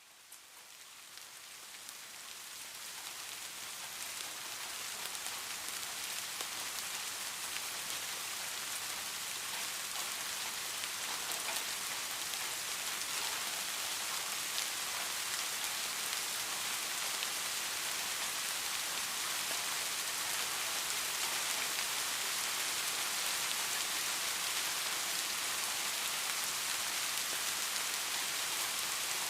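Steady soft rain falling, a dense patter of drops on a surface that fades in over the first few seconds and then holds even.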